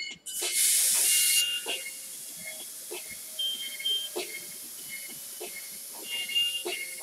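Airbrush spraying: a loud hiss of air and paint starts about half a second in and eases after about a second to a steady, softer hiss.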